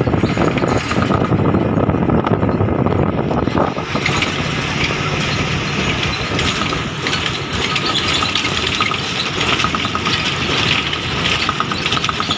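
Steady running noise of a moving road vehicle, heard from on board as it crosses the bridge: engine, tyres and wind mixed together. About four seconds in, a brighter hiss joins it.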